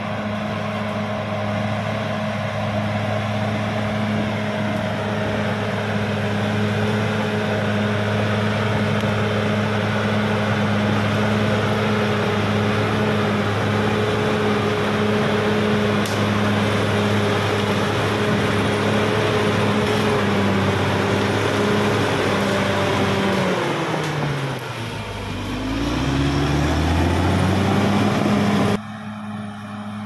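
Caterpillar D6R XL bulldozer's diesel engine running steadily at high speed while the blade pushes soil. Near the end the engine note falls sharply and climbs back up, then the sound cuts abruptly to a quieter engine in the background.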